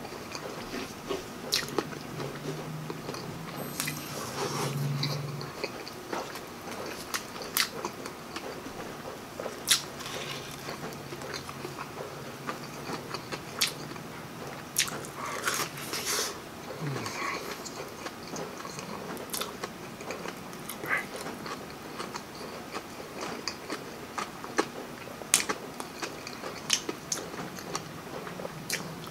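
Close-up eating sounds: a person chewing and biting into a breaded fish fillet and barbecued pork, with wet mouth clicks and crunches of the breading. Twice there is a low closed-mouth hum of several seconds, typical of a mukbang eater's 'mmm'.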